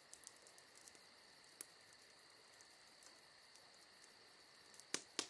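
Faint night ambience of crickets trilling steadily, with a few sharp crackles from a campfire, one about a second and a half in and two close together near the end.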